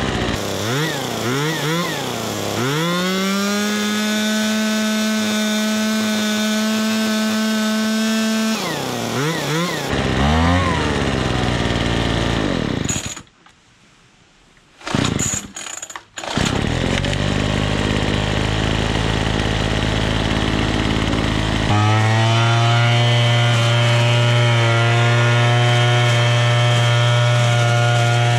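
Troy-Bilt 27cc two-stroke gas leaf blower engine revving up and down a few times, then held steady at high throttle and revved again. It goes quiet for about three seconds in the middle, with a few short sounds. It then runs again and settles into a steady, even note in the last third.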